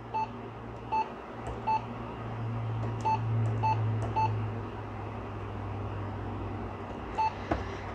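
Canon printer's control panel beeping as its buttons are pressed during setup: about seven short, identical electronic beeps at uneven intervals, over a steady low hum.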